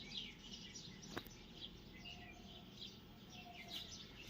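Faint chirping and twittering of small birds, with a single sharp click about a second in.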